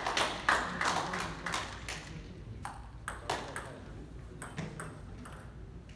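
Table tennis ball clicking off paddles and table in a rally, about three hits a second, which ends about two seconds in; after that, a few scattered, fainter taps of the ball.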